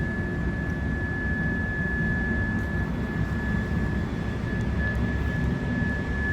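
Steady machine noise from a workshop: a low drone with a constant high-pitched whine running through it.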